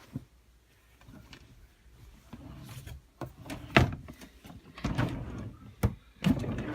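Clothes being handled and rustled while sorting through a wardrobe, with two sharp knocks a couple of seconds apart, like a drawer or closet door being bumped.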